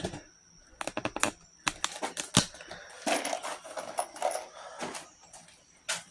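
Irregular sharp metallic clicks and taps: a quick run of them about a second in, single louder knocks later, and a stretch of softer rustling noise in the middle.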